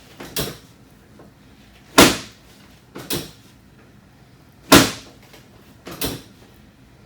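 Chiropractic drop table's pelvic drop section falling with a loud clack three times, about every three seconds, with a softer double knock about a second after each. Each drop is a sacroiliac-joint adjustment.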